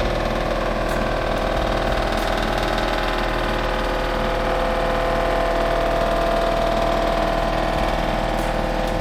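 A motor running steadily with an even hum, its pitch lifting slightly about halfway through.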